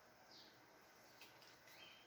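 Near silence: room tone, with two faint high chirps, one about a third of a second in and a rising one near the end.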